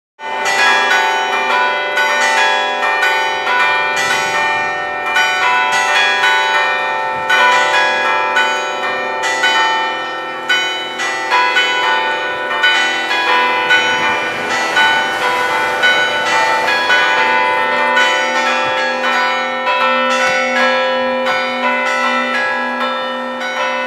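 Church tower bells pealing: the retuned 1875 Meneely & Kimberly bell with four smaller Whitechapel bells, struck in quick succession so that their long-ringing tones overlap. A deeper note repeats steadily near the end.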